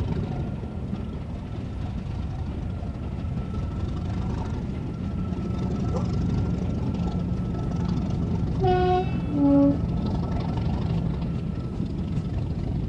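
A train passing with a steady low rumble and a thin steady whistle over it, led by a Class 37 diesel locomotive. About two-thirds of the way through, a two-tone horn gives two short notes, high then low.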